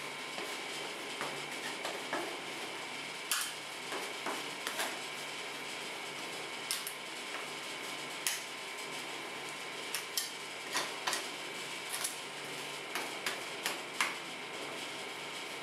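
Metal spatulas clacking and scraping on a steel cold plate while chopping and spreading ice cream mixture: irregular sharp clacks, a few at a time, over a steady background hiss.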